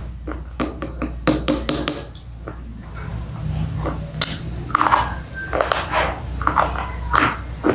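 A slate pencil tapped several times in quick succession, clinking with a short ring, then bitten and chewed with irregular sharp crunches from about three seconds in.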